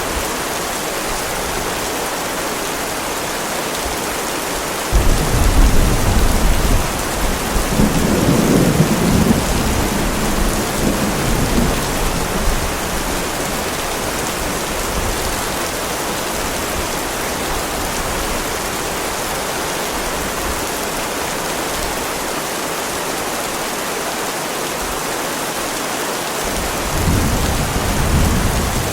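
Heavy rain falling steadily, with a sudden low rumble of thunder about five seconds in that rolls on for several seconds. A second rumble of thunder begins near the end.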